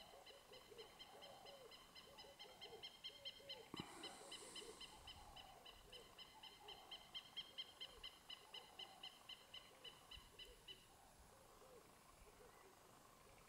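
Faint wild bird calls: a fast, evenly pulsed high call repeating several times a second that stops about three-quarters of the way through, over soft, low, repeated notes that carry on throughout.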